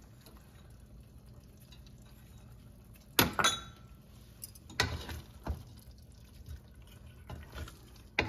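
A few sharp clinks and knocks of a metal spoon against the cooking pot as spice mix goes into the chicken curry, over a low steady hum. The loudest, a short ringing clink, comes about three seconds in, with two duller knocks around five seconds.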